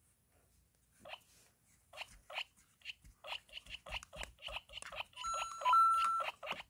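Lego Mario and Lego Luigi interactive figures being picked up and moved, giving a quickening series of short, crisp electronic blips and clicks, with a steady electronic beep lasting about a second near the end.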